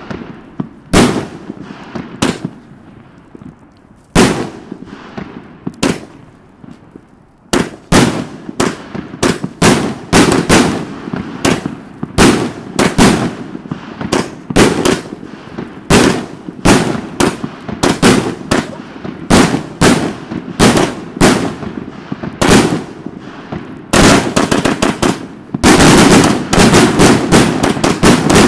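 Consumer firework cake firing a series of sharp reports. A few shots come with pauses at first, then about two a second, ending in a dense, rapid volley near the end.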